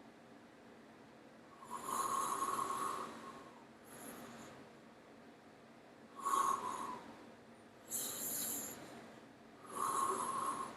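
A man taking deep, audible breaths during a rib-opening breathing exercise: four loud breaths a couple of seconds apart, each with a hoarse edge, with quieter breathing between them.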